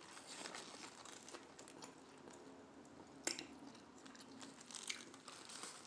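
Faint close-up chewing of a mouthful of crispy fried chicken sandwich, with one sharper crunch about three seconds in.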